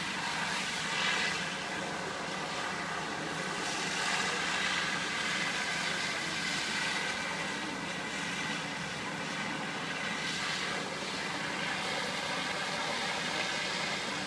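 Fire apparatus diesel engines running steadily at the scene of a working fire, making a continuous mechanical drone of several steady tones.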